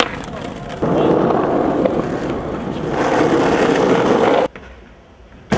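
Skateboard wheels rolling over city pavement, a steady rushing rumble that gets louder about a second in and cuts off sharply near the end.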